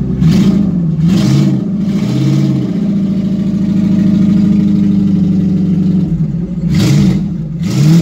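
Car engine running and being revved, its pitch rising and falling a few times, with brief rushing noises about a second in and near the end.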